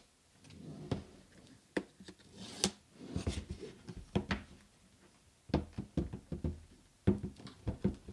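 Hands handling a cardboard iPad Air box on a table: scattered light knocks, taps and rustles as the pull tabs are torn off and the box is turned and its lid worked loose.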